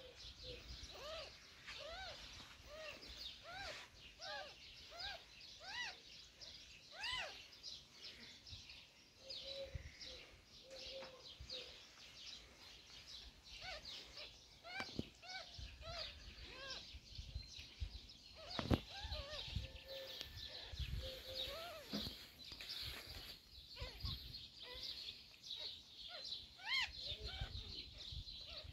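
Newborn kittens mewing: thin, short rising-and-falling squeaks repeated about once or twice a second, with soft rustling of fur and blanket underneath.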